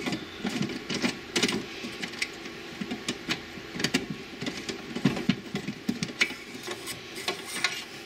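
Irregular clicks, taps and scrapes of a long screwdriver working at a screw and knocking against a plastic tray inside a desktop computer case.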